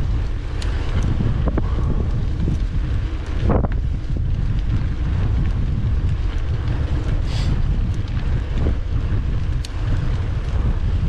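Wind buffeting the microphone of a gravel bike on the move, a steady low rumble with scattered small clicks and rattles on top.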